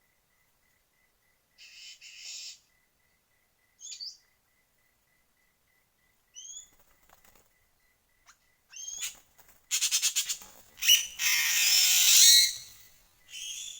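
Short, rising bird chirps at scattered moments, then near the end a run of clicks and a loud rustling burst of wing flapping from a bird.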